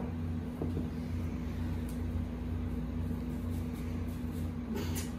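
A steady low hum, with a few faint brushes and scrapes of broom bristles on a hardwood floor as a kitten grabs and bites at the broom head.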